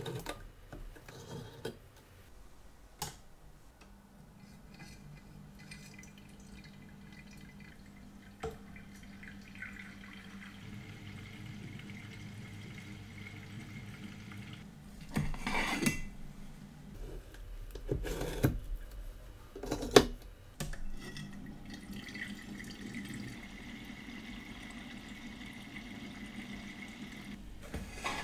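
Elma WF Pro watch cleaning machine running, its motor turning a basket of watch parts in a jar of cleaning solution with a steady hum. A few sharp clicks come before the hum starts, and several louder knocks and clanks come about halfway through and again near the end as the basket and jars are handled.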